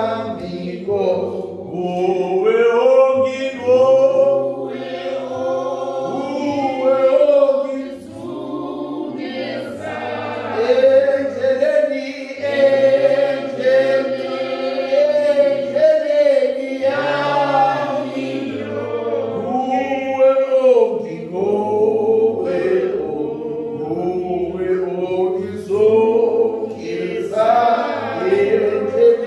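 A group of voices, a church congregation, singing a hymn unaccompanied, with long held notes carried at more than one pitch.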